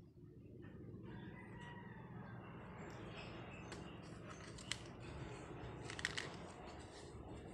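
Cardboard phone box being handled as its black inner tray is lifted out: scattered light clicks and taps, the loudest a little before and about halfway through, over a faint steady background hum.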